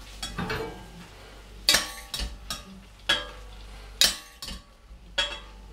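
A spoon clinking against a bowl and a stainless steel pan as cooked broad beans are spooned out: a series of sharp clinks, roughly one a second, with smaller scrapes between them.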